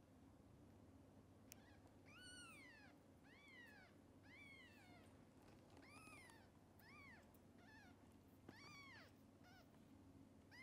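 Newborn kittens mewing over and over: thin, high calls that each rise and fall in pitch, about one a second, faint.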